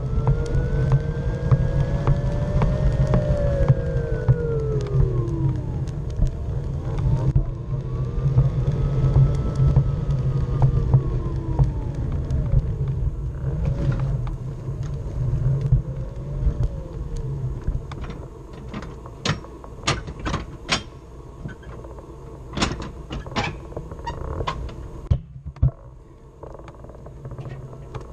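Small wheeled ride rolling over pavement with a steady low rumble, and a whine that rises and falls in pitch as it speeds up and slows, twice long and then in shorter swells. Near the end the whine is gone and a run of sharp clicks and knocks comes through.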